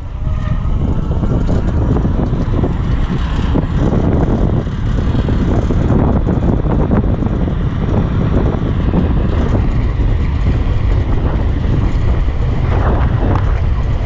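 Wind buffeting the microphone of a camera on an electric bike riding fast downhill: a loud, uneven low rumble and rush with no clear tones.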